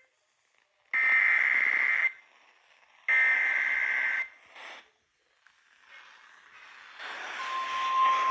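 Emergency Alert System header tones on an FM radio broadcast: two harsh, one-second digital data screeches about a second apart, opening a severe thunderstorm warning. Hiss then swells, and a single steady attention tone starts near the end.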